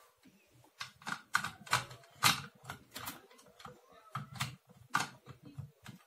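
Plastic Duplo toy pieces clicking and knocking against a table as the toy truck and figures are handled: a run of sharp, irregular clicks, about one or two a second.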